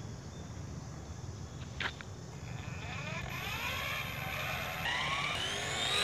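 Small RC helicopter's coreless electric motors spinning up the rotors, a whine rising in pitch and getting louder from about halfway through. A single sharp click a little before the spin-up starts.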